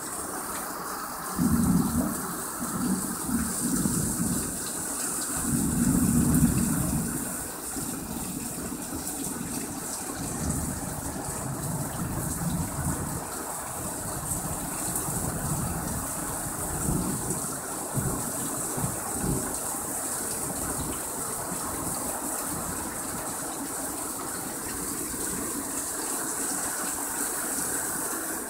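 Heavy rain falling in a thunderstorm, a steady hiss, with low rumbles of thunder through the first several seconds, loudest about a second and a half and six seconds in, and fainter rumbles later.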